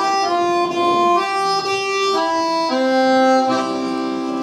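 Accordion playing a slow melody in long held notes, moving into a sustained chord a little past halfway.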